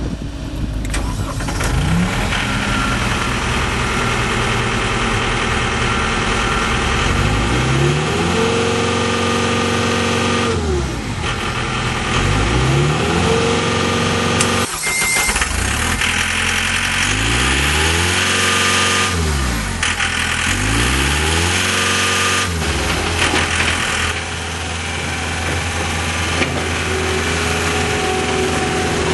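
Turbo-diesel engine of a John Deere 318D skid steer loader, running and revved up and back down about four times, each rise held for a second or two before it drops back toward idle.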